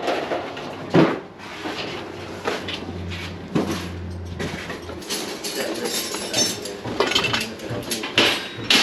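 Metal hand tools clinking and clattering as they are handled and sorted, in irregular sharp knocks. A low steady hum runs underneath for a couple of seconds near the middle.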